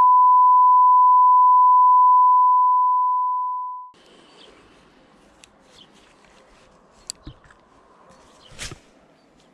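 An edited-in censor bleep: one steady, loud, pure tone near 1 kHz, fading out and stopping about four seconds in, covering swearing. After it, faint outdoor background with a few soft clicks and rustles.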